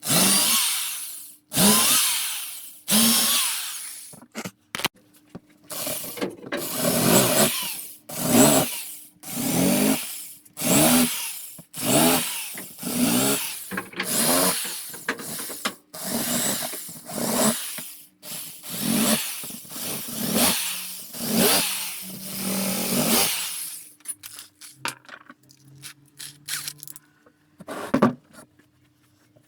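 Power drill run in a long series of short bursts, each a second or so long, the trigger pulled again and again as it bores or drives screws into wood. The bursts stop near the end, leaving a few light clicks of handling.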